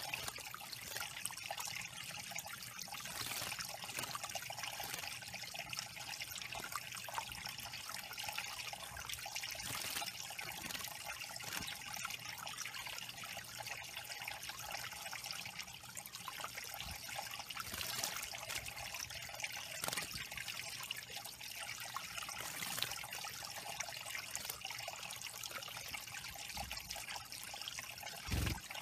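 Small stone waterfall trickling steadily into a shallow pebble pool, with scattered brief splashes from a tufted titmouse bathing in the water. A low thump near the end.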